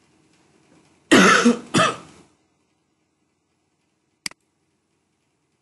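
A man coughing twice about a second in, then a single sharp computer mouse click a couple of seconds later.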